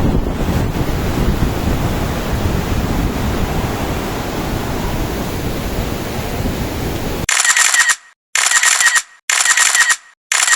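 A steady rushing noise that cuts off abruptly about seven seconds in. Four short, bright bursts of sound follow, each under a second long, roughly one a second with silence between them.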